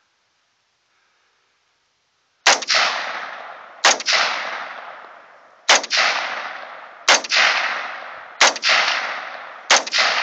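AR-15 rifle fired six times in slow semi-automatic succession, starting about two and a half seconds in, the shots about a second and a half apart, each shot followed by a long fading echo.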